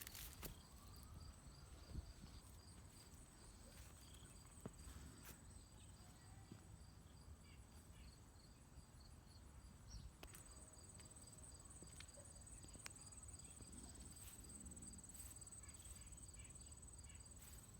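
Faint crickets chirping: a high steady trill with even pulses, with a few small clicks over quiet background rumble.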